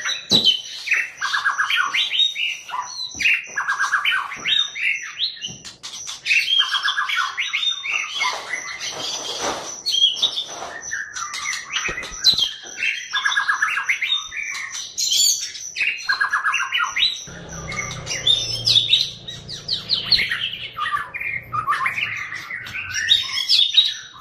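White-rumped shama (Murai Batu Medan) singing loudly: a varied song of rapid trilled and chattering phrases, repeated with short pauses. A thin steady high tone runs behind it, and a low hum joins in for a few seconds in the latter half.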